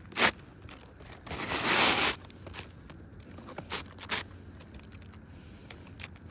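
Asphalt roof shingle being slid into place under the overlapping shingles: a sharp tap just after the start, a scraping rush lasting under a second about a second and a half in, then a few light knocks.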